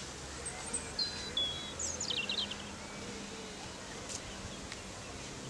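Outdoor ambience with birds calling: a couple of short high whistled notes about a second in, then a quick run of chirps dropping in pitch around two seconds in, over steady background noise.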